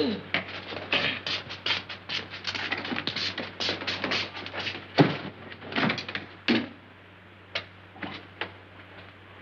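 A rapid, irregular run of knocks and clatters, several a second, with one sharp knock about five seconds in, thinning to a few scattered taps near the end.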